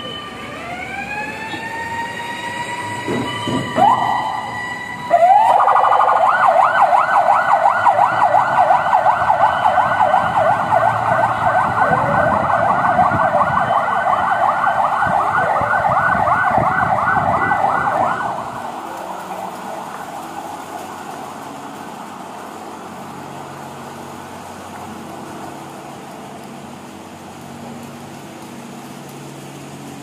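Fire-service siren: a rising wail winds up over the first couple of seconds, then switches to a loud, fast yelping warble about five seconds in. The yelp cuts off sharply about eighteen seconds in, leaving a faint low hum.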